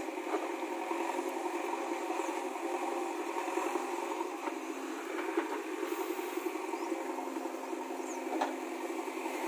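JCB 3DX backhoe loader's diesel engine running steadily as the backhoe arm digs into the soil, with a few short knocks: near the start, about halfway and near the end.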